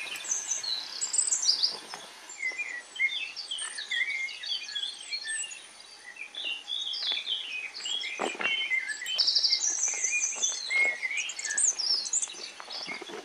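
Several small songbirds chirping and singing at once, many short quick notes overlapping, with a buzzy trill about nine seconds in.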